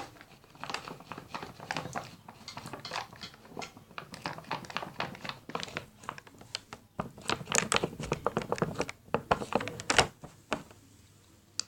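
A spoon stirring glue and a little borax water in a bowl: quick, irregular clicks and scrapes of the spoon against the bowl, busiest in the second half and stopping near the end.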